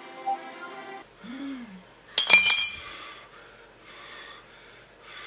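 A single sharp clink of glass bottles knocking together about two seconds in, ringing briefly, after background music stops about a second in; a few soft breaths follow.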